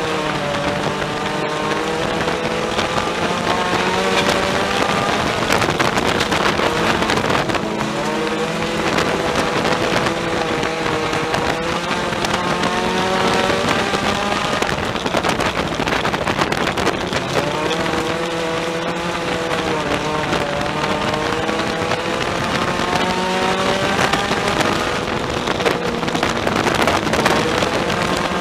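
A Ford Focus sport compact race car's four-cylinder engine, heard from inside the cockpit, running hard at race speed. Its note climbs over several seconds, then drops back, several times over.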